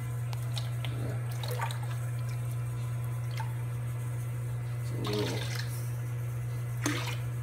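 Aquarium water splashing and sloshing as a plastic food container is dipped into the tank and filled, with separate splashes about a second in, around five seconds and near the end, over a steady low hum.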